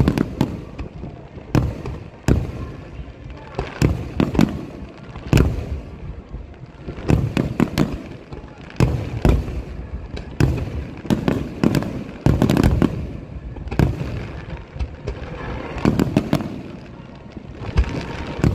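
Aerial firework shells bursting in a finale barrage: a dense, irregular run of loud bangs, sometimes several a second and overlapping, each followed by a rumbling echo.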